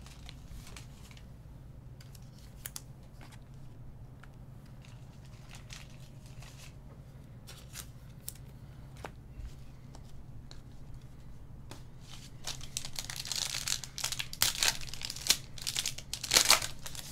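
Foil trading-card pack crinkling and being torn open, loud over the last four seconds or so. Before that there are only faint scattered clicks over a steady low hum.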